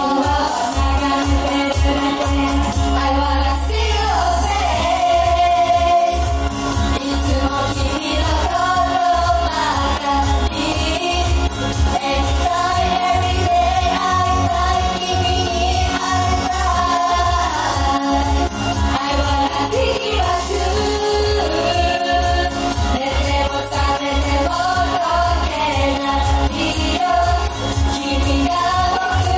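Pop song with a steady beat and female group vocals, sung into handheld microphones over a backing track.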